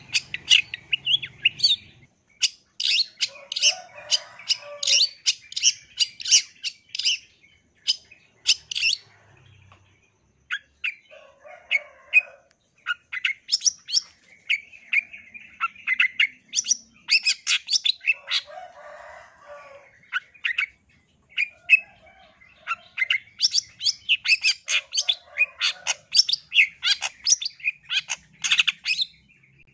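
Long-tailed shrike (cendet) singing: phrases of rapid, harsh, chattering notes, broken by short pauses.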